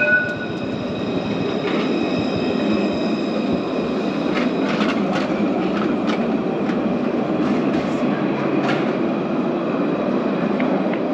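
A tram running by on its rails: a steady rumble with a thin, high, steady squeal over it and a few sharp clicks about halfway through.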